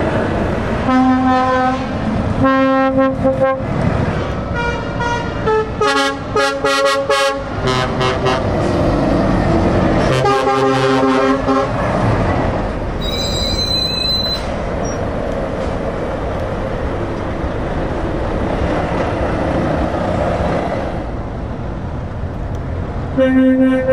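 Heavy trucks passing in a slow convoy with their diesel engines running, horns sounded again and again in blasts of one to two seconds, several of them chords of more than one note. A short high-pitched tone sounds just after halfway, then only the engine and tyre noise until the horns come back at the very end.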